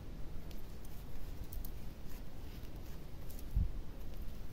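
Faint handling sounds of crocheting: a metal crochet hook and yarn rubbing, with a few light ticks and a soft low thump about three and a half seconds in.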